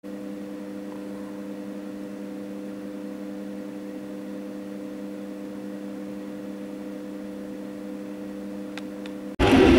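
Steady electrical hum made of several level tones. It cuts off suddenly just before the end, and loud outdoor jet aircraft noise comes in.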